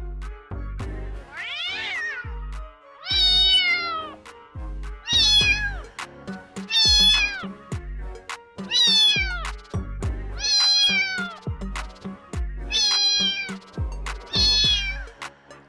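A cat meowing about eight times, roughly every two seconds, each call mostly falling in pitch, over background music with a steady low beat.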